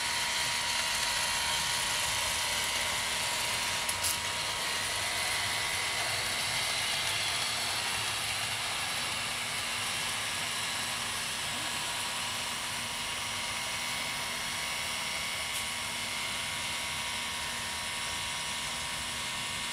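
Hornby 14xx 00 gauge model tank locomotive running along the track, its electric motor whirring steadily with a thin high whine. There is a light click about four seconds in.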